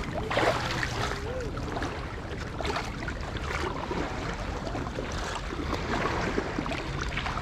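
Lake Superior waves washing onto a sandy beach: a steady rush of water with a low rumble of wind underneath.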